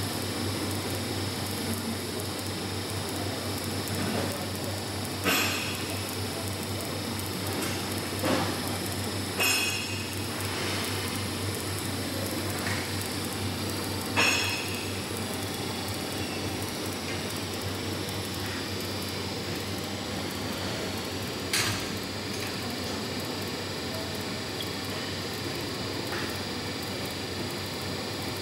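Automatic pipe welding machine running an arc weld on a steel pipe: a steady hiss over a constant low hum, broken by a few short sharp clicks.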